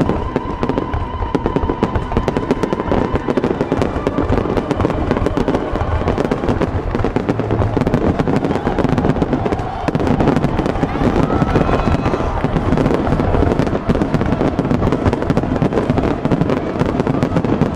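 Fireworks finale barrage: aerial shells bursting in a dense, continuous volley, the reports and crackle running together with no gap between them.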